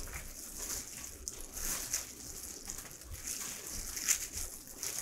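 Disposable plastic gloves crinkling against wet, salt-softened napa cabbage leaves as the leaves are spread apart and bent. The rustling is close and continuous, with many small crisp crackles. The salted leaves bend without snapping, the sign that the cabbage has been salted well.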